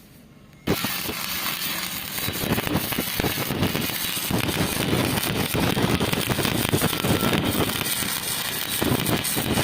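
Electric arc welding: the arc strikes abruptly under a second in, then runs with a steady crackling sizzle.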